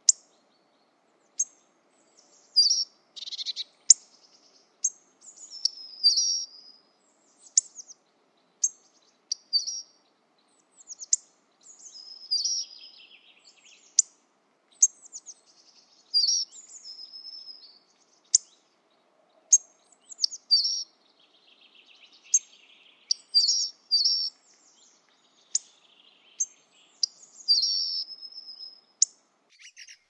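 Small songbirds chirping and calling: a scatter of short, high chirps mixed with sharp ticks, about one every second.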